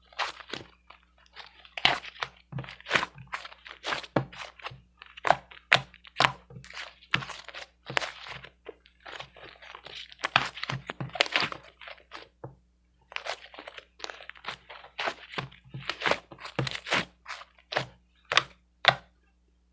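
Handmade slime being squeezed and pressed, giving irregular crunchy crackles one or two a second, with a brief pause about two thirds of the way through.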